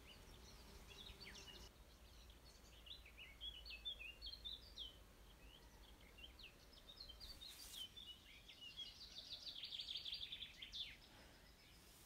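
Faint songbird chirps and short calls, with a fast trill from about nine to eleven seconds in.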